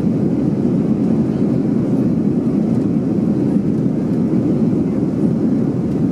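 Airbus A320 cabin noise in flight, heard from a window seat over the wing: the engines and the airflow make a steady, even low rumble.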